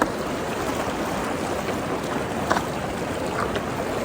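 Fast-flowing creek water rushing steadily around a person wading through the current, with a few brief sharp sounds over it. The creek is running high and strong.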